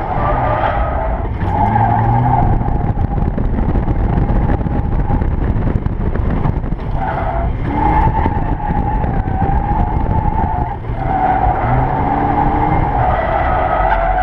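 Turbocharged Mazda Miata being drifted: the tyres squeal in several long stretches of a few seconds each with short breaks between, while the engine revs rise and fall underneath. Heard from inside the open cockpit.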